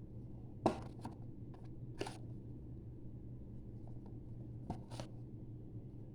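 A handful of short, sharp clicks and taps from handling, the first the loudest, over a steady low hum.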